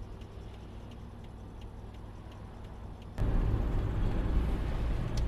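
Car interior road and engine rumble with a faint, evenly spaced ticking of the turn-signal indicator; about three seconds in the rumble abruptly gets louder.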